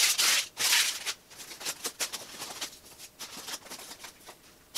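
Styrofoam packing blocks and the plastic wrap around a bass guitar scraping and rustling as they are pulled out of the shipping box: two loud scrapes in the first second, then lighter rustling and taps.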